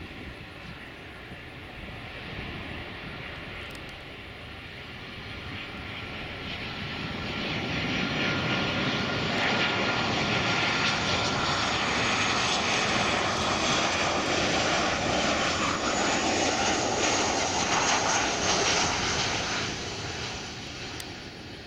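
Boeing 737-700's CFM56 jet engines on landing approach, passing close by. A rushing jet noise with a high whine grows loud about seven seconds in, stays loud for about twelve seconds while the whine drops slightly in pitch, and fades near the end.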